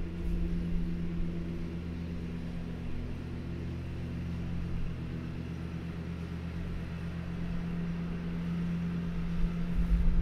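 Steady low hum made of several unchanging tones, like a running fan or air conditioner.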